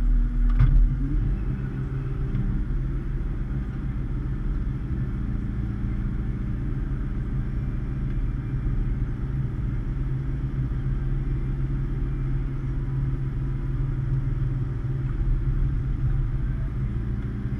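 Hitachi ZX210 excavator's diesel engine running steadily while it powers a hydraulic post-hole auger, with a sharp knock about half a second in.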